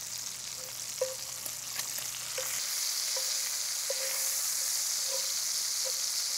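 Bacon sizzling in its own grease in a cast-iron skillet, a steady high hiss that grows a little louder about halfway through. Small ticks and pops come every half second or so as the fat spits and a fork turns the strips.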